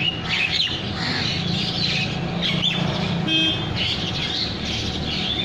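Many birds chirping and twittering at once, over a steady low hum of city traffic.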